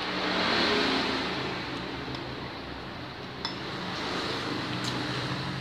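A metal spoon clinks against a ceramic soup bowl twice, about three and a half and five seconds in, during a meal of bakso. Under it runs a steady low hum, with a louder rush of noise in the first second.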